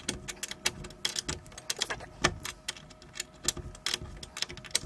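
A small 8 mm wrench tightening a nut on a mounting bolt: a run of quick, irregular metallic clicks as it is worked back and forth.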